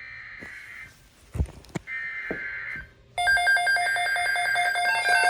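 Emergency Alert System SAME header data: two buzzy digital bursts about a second long, a second apart. About three seconds in, a loud, steady electronic attention tone starts, with a pulsing beep in it, announcing a severe thunderstorm watch.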